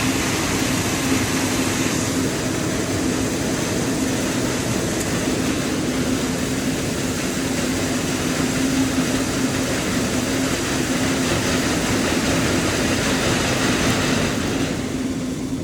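Heavy machinery running steadily: a loud, even rushing noise with a steady low hum under it. The higher part of the noise drops away near the end.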